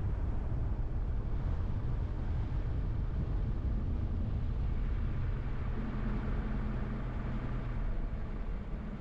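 A car driving along a road: steady low engine and tyre rumble, with a steady engine hum coming through from about four seconds in and easing off near the end.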